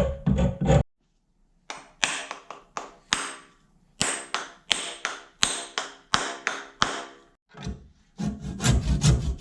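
Repeated hand strokes of a file or sandpaper rubbing on the hammer, one scrape roughly every 0.7 seconds, after a brief pause near the start and growing quicker near the end.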